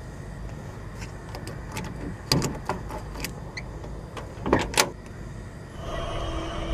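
Chrome car door handle being gripped and pulled: a few light clicks, then two sharp latch clunks about four and a half seconds in, over a low rumble. A steady humming tone comes in near the end.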